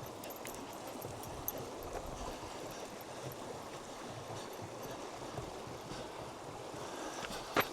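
Steady rush of flowing stream water, with a few faint ticks and a sharper click near the end.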